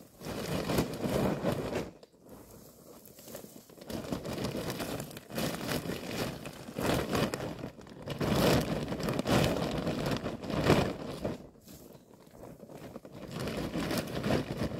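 Hands crunching and rustling a bundle of dry grass tinder and a crinkly bag, in irregular bouts with short pauses about two seconds in and again near the end.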